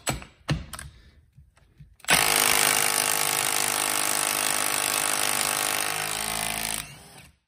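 Milwaukee M12 Fuel stubby 3/8-inch cordless impact wrench hammering steadily for about five seconds, starting about two seconds in, as it works to break loose a 19 mm nut torqued to 180 ft-lb. A few light clicks come before, as the socket is fitted onto the nut.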